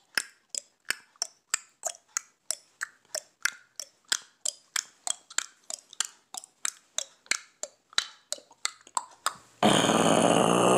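Mouth noises imitating an engine: an even run of sharp clicks or pops, about three to four a second, then, near the end, a sudden continuous vocal engine drone that is louder than the clicks.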